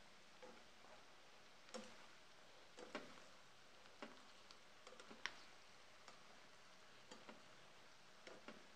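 Plastic spatula faintly clicking and scraping against the frying pan as chopped cabbage is stirred, light irregular knocks about once a second, the sharpest about five seconds in.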